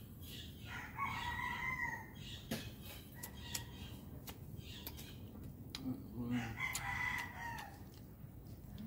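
A rooster crowing twice, about a second in and again near seven seconds, each crow lasting a little over a second. Faint scattered clicks come between the crows.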